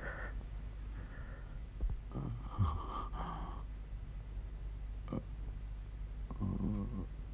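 A man breathing heavily and sighing, with a short low moan about six and a half seconds in.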